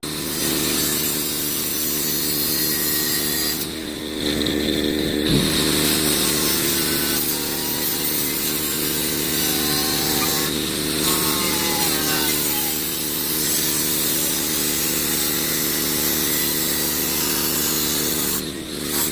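A power tool running steadily as it cuts sheet metal for a floorboard patch, easing off briefly about four seconds in and again near the end.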